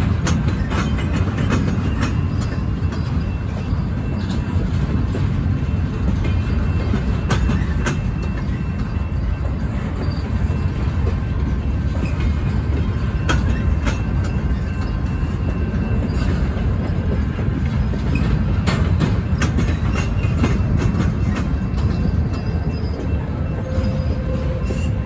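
Double-stack intermodal well cars of a freight train rolling past close by: a steady rumble of steel wheels on rail, broken by scattered clicks and clanks, with faint high wheel squeal at times.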